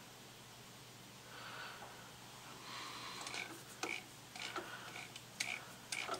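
Light, sharp clicks, about two a second, from the mill spindle and keyless chuck being turned by hand during a runout check with a dial test indicator, starting about halfway through. They follow two soft hisses.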